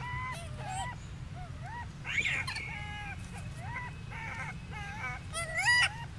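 Infant macaque calling: a run of short high-pitched coos and squeaks, about three a second, with louder, sharper cries about two seconds in and again near the end.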